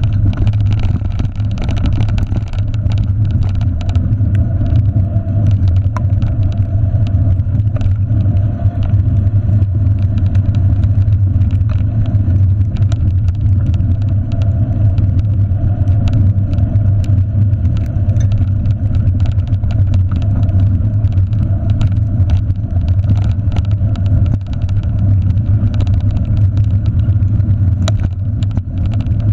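A bicycle rolling fast over a rough dirt trail, heard through a handlebar-mounted camera: a loud, steady low rumble of wind and ride vibration, with scattered ticks and knocks from bumps in the trail.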